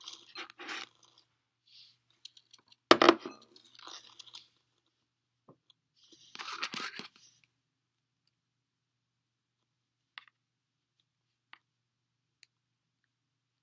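Handling noise of single-braided rope being worked by hand for a splice: scattered bursts of rustling and crunching, with one loud knock about three seconds in, then a few faint ticks.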